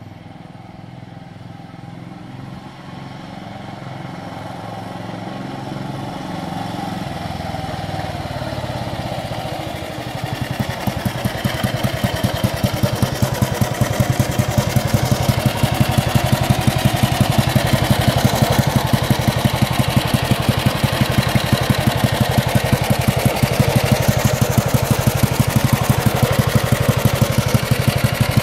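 1938 NSU 501 OSL's single-cylinder OHV engine, first heard approaching and growing louder. From about ten seconds in it runs close by at a steady idle with an even beat of exhaust pulses.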